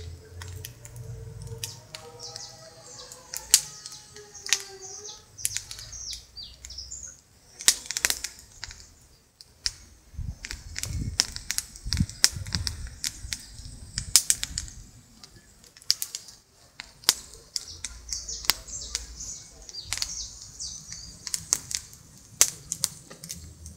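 Birds chirping high in the trees, with many sharp irregular clicks and patches of low wind rumble on the microphone. A lower, pitched call slides up and down during the first few seconds.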